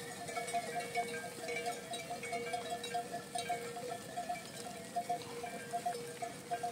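Many livestock bells on a passing flock of sheep and goats, clanking and ringing irregularly as the animals walk.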